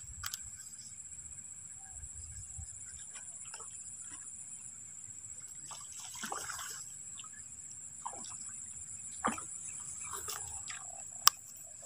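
Climbing perch splashing at the water surface as it is reeled in on the line, over a steady high drone of insects. A single sharp click comes near the end.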